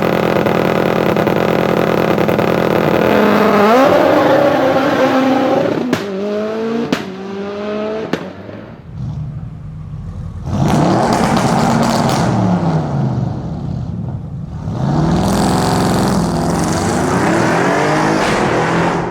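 A high-revving performance car engine held at steady revs, then dropping off as the throttle closes, with three sharp exhaust bangs about a second apart. Later the engine revs rise and fall again in two long bursts.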